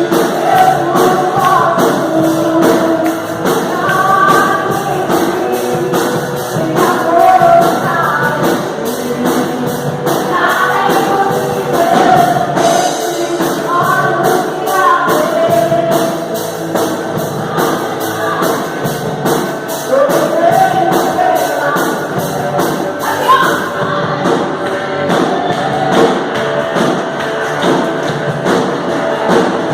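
Live worship band with a sung vocal melody over drums and regular percussion, a band-backed gospel song.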